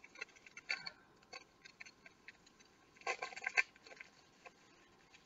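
Faint rustling and small crinkles from handling a plastic bag of gummy candies, with a short louder crinkle about three seconds in.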